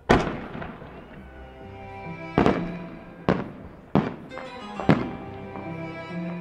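Aerial fireworks going off in the sky: about five sharp bangs a second or so apart, the first the loudest, each trailing off. Music plays under them.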